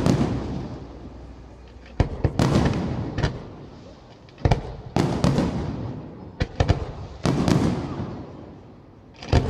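Aerial firework shells bursting: sharp bangs coming in clusters every couple of seconds, each followed by a long decaying echo.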